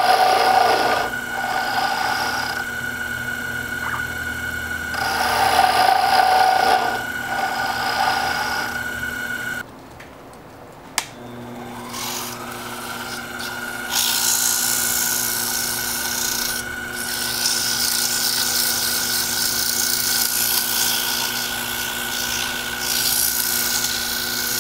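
Mini lathe's motor whining steadily while a radius cutter takes short scraping passes across a spinning wooden sphere. About ten seconds in the motor stops, there is a click, and it spins back up with a rising whine. The spinning wooden ball is then sanded by hand, a steady rasping hiss.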